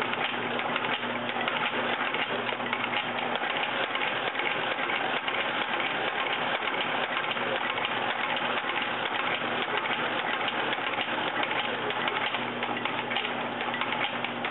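Littleway (Blake) stitching machine running steadily, stitching through the midsole of a shoe: a fast, even clatter of the needle over a low motor hum.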